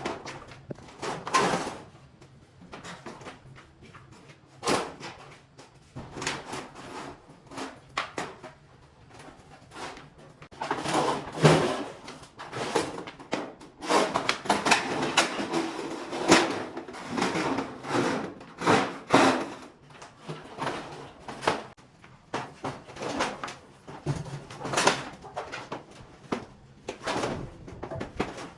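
Irregular knocking, clattering and rustling from things being handled, in short uneven bursts.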